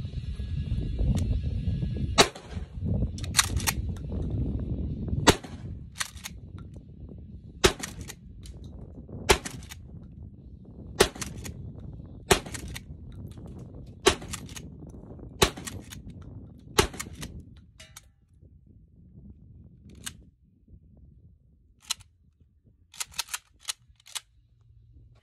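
Mossberg M590A1 12-gauge pump-action shotgun fired nine times with 2¾-inch birdshot, a shot every one and a half to three seconds, the slide racked with a quick double clack between shots. Near the end, a few lighter clacks as the action is worked on the emptied gun.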